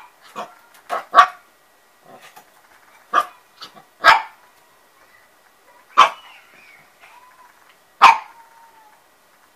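Small dog barking: a string of sharp single barks, the loudest coming about every two seconds, with a few quieter, quicker ones early on.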